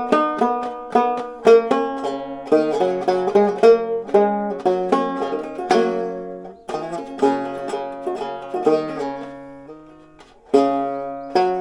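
Stromberg Cuppophone banjo being played, a tune of quickly picked, ringing notes and chords. The playing stops about ten seconds in, the notes fade, and then it starts again. It is played to test the sound after a neck adjustment.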